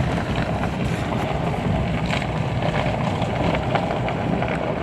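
Steady engine and tyre noise heard from inside a vehicle's cabin as it drives.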